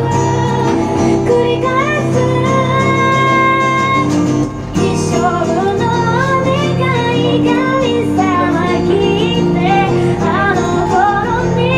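A woman singing a slow melody with vibrato on her held notes, accompanying herself on a strummed acoustic guitar. The singing and strumming break off briefly about four and a half seconds in.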